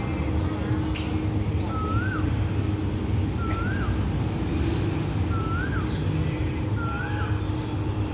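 Steady low rumble of a diesel locomotive idling in the distance. A bird gives a short rising-and-falling whistled call four times, about every one and a half seconds, and there is one sharp click about a second in.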